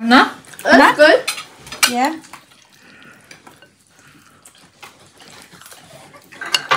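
Metal serving tongs clinking against ceramic serving bowls and plates as food is dished up, a run of light clicks. Brief voices are heard in the first two seconds.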